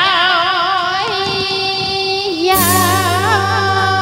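Instrumental interlude of a karaoke backing track: a lead melody of long held notes with wide vibrato, joined by bass and chords about two and a half seconds in.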